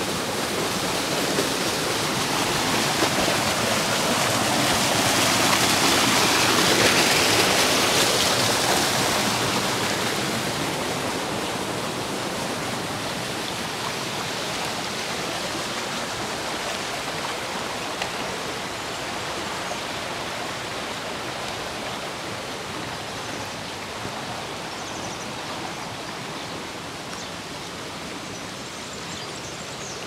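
Running water of a stream channel, an even rush that grows louder to a peak about seven seconds in, then fades gradually.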